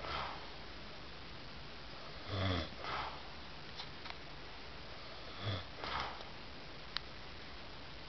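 A man snoring in his sleep: two breaths about three seconds apart, each a low snore followed half a second later by a breathier puff, with a faint steady hiss beneath and a single small click near the end.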